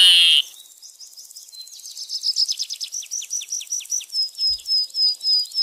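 Bald eagle calling: the end of a loud call in the first half second, then a fast run of short, high, descending chirps that slows into evenly spaced high piping notes, about two or three a second.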